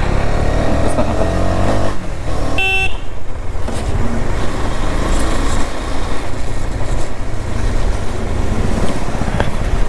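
KTM Duke 250 single-cylinder motorcycle running along the road with wind and road rumble, its engine pitch rising over the first second or two. A vehicle horn toots once, briefly, about two and a half seconds in.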